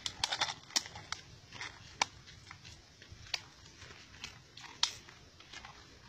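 Dry leaf litter and twigs crackling and clicking as they are disturbed: a quick cluster of clicks in the first second, then single sharp clicks about once a second.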